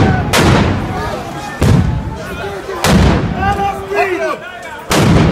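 Concussion (stun) grenades going off in a volley: about five sharp, loud bangs, each echoing off the street, with people shouting between the blasts.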